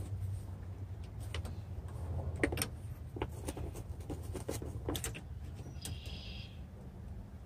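Light clicks and knocks of a Freightliner truck's wiper arm being worked by hand at its pivot on the wiper linkage, an arm that will not seat all the way, over a low steady rumble. A short squeak comes near the end.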